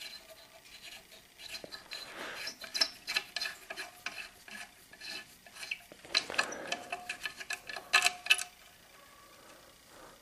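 Small metal parts clinking, tapping and scraping in irregular spells as a motor is unbolted from a welded metal frame.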